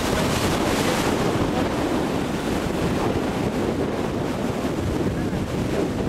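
Surf breaking and wind buffeting the microphone: a steady, rough rushing noise.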